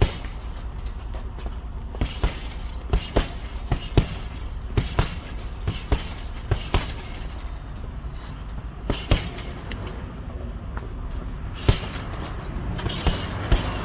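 Punches thrown in leather welding gloves landing on a target: sharp slaps in quick combinations of several a second, with pauses between flurries, over a steady low background rumble.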